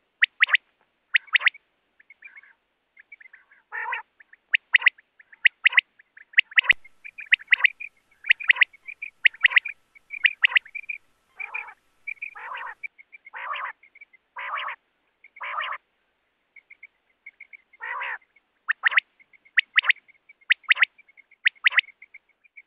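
Common quail (Coturnix coturnix) calling over and over: runs of short, sharp notes mixed with longer, fuller notes, with a soft trill between them and brief pauses.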